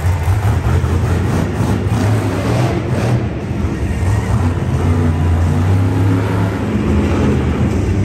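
Monster truck engines running loud in an arena, a steady low drone that dips briefly about three seconds in and grows stronger in the second half.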